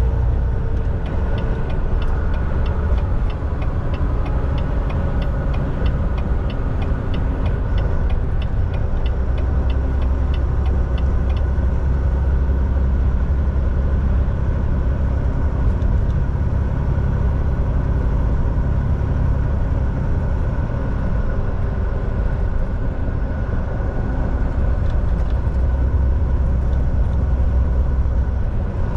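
Semi truck driving down the highway: steady engine drone and road rumble, with a light rhythmic ticking, about two a second, through the first ten seconds or so.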